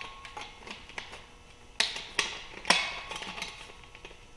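Metal clinks and knocks as a 2.5-inch exhaust pipe is fitted over the expander die of a hydraulic exhaust pipe expander. Three sharper knocks come around the middle, with lighter ticks between.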